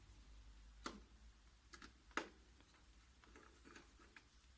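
Faint, scattered metal clicks and taps from small screws and a screwdriver while the main motor is fastened into a copier, with two sharper clicks about one and two seconds in.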